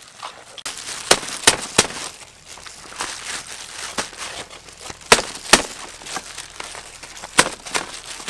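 Thin plastic food gloves and banana leaves crinkling as sticky rice is pressed flat in metal trays, with sharp clicks and snaps scattered through, the loudest about a second in, around five seconds in and near the end.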